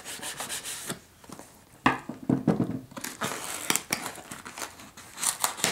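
A taped cardboard shipping box being pulled open by hand: the flaps rustle, crinkle and tear loose, with a sharp snap about two seconds in.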